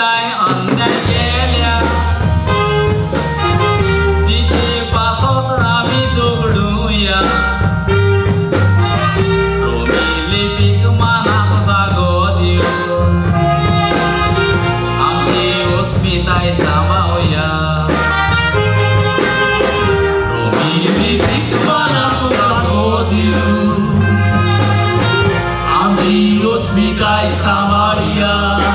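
Tiatr song: a voice singing over a band, with a steady bass line and drums keeping the beat.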